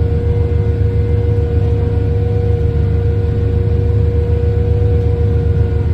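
Inside the cab of an OXBO 8430 sweet corn harvester at work: a steady, loud low drone of the engine and machinery, with a constant whine held at one pitch.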